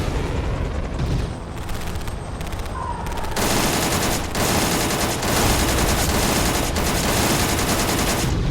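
Action-movie soundtrack of automatic gunfire: lighter shots at first, then a dense, continuous volley of rapid fire from about three seconds in, over a deep rumble.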